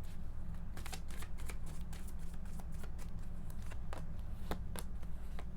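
A tarot deck being shuffled by hand: a run of quick, irregular card flicks and snaps, over a steady low hum.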